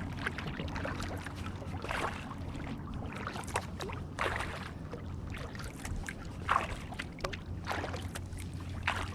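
Kayak paddling on calm water: the paddle blades dip and swish through the water in a stroke roughly every second, with splashes and drips between.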